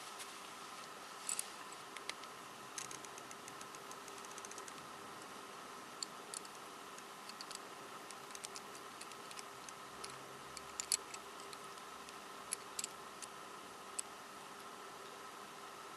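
Small plastic twisty-puzzle pieces handled and set down, giving scattered light clicks and taps, some in quick clusters, over a steady faint hum.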